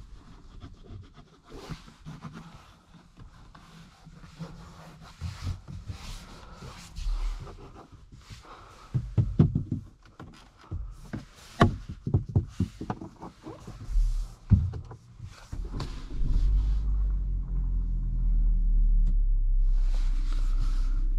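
Irregular clicks and knocks inside a car cabin. About three-quarters of the way in, a steady low hum sets in and holds: the Chery Tiggo 8's 1.6-litre petrol engine running.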